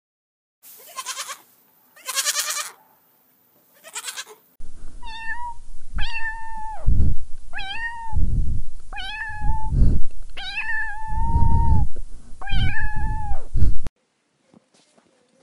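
Goat kids bleating three short, wavering times, then a domestic cat meowing about six times over a low rumbling noise, stopping abruptly.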